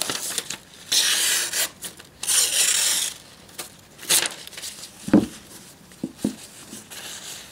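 Knife blade slicing through a sheet of paper in a sharpness test: two long papery slicing hisses in the first three seconds and a shorter one around four seconds, then paper rustling with a sharp snap about five seconds in and a couple of small clicks after it.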